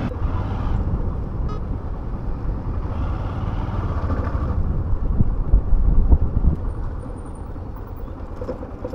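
Road traffic noise with a low wind rumble on the microphone, easing a little near the end.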